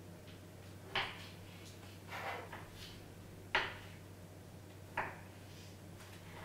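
Knife slicing small tomatoes on a wooden cutting board: three sharp knocks of the blade meeting the board, about a second and a half apart, with a softer run of little taps between the first two.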